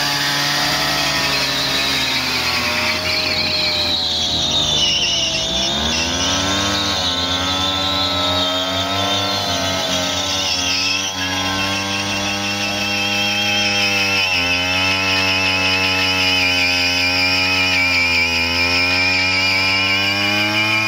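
Two-stroke moped engine held at high revs through a burnout, the rear tyre spinning on a board. The revs sag and climb again several times.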